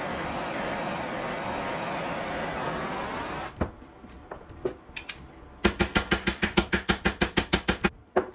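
Handheld gas torch burning with a steady hiss, cut off abruptly about three and a half seconds in. Then a fast run of about fifteen hammer blows on the metal bracket, roughly seven a second, and one more blow just before the end.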